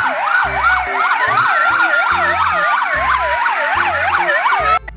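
Electronic fire-engine siren sound: a fast up-and-down wail, about three cycles a second, with a slower gliding wail layered over it. It cuts off suddenly near the end.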